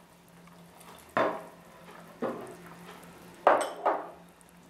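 Small glass dish knocking and clinking against a stainless steel stock pot and kitchenware as soy sauce is added to simmering broth: four sharp knocks with brief ringing, two of them close together near the end, over a faint steady hiss.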